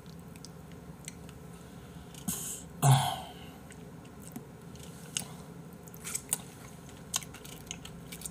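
A man eating seasoned raw oysters with rice: soft chewing and small mouth clicks, with a short breath and a brief grunt from the throat between two and three seconds in.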